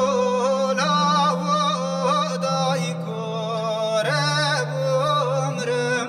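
Male voice singing a Kurdish klam in long, wavering, melismatic phrases. Held low notes from guitar and clarinet accompany it.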